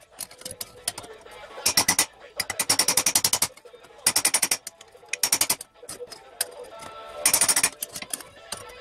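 Steel gauntlet being hammered over a steel stake in fast runs of light taps, several short flurries, each with a metallic ring: the knuckles being teased into shape with many gentle blows rather than a few big hits.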